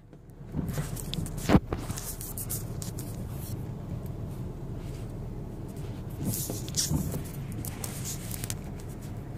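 Car idling, a steady low rumble heard from inside the cabin, with knocks and rustling from a phone being handled; the loudest knock comes about a second and a half in.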